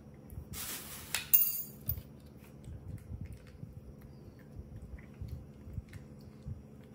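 A metal spoon against a plastic yogurt cup and plate. There is a short scrape or rustle, then a bright ringing clink a little over a second in, followed by faint light taps.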